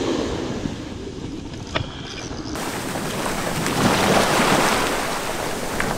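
Surf washing up the beach, with wind buffeting the microphone as a low rumble; the wash of a wave swells louder about three and a half seconds in.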